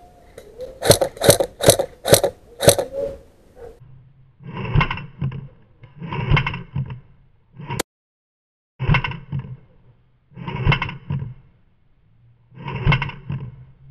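Five sharp airsoft rifle shots about half a second apart, fired in quick succession. Then come five longer, duller repeated sounds about every two seconds over a low hum, played back with the replay of the shots.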